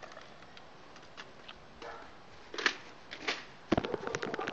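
Scattered light clicks and rustles of a handheld phone camera being moved, thickening into a quick run of sharp knocks near the end.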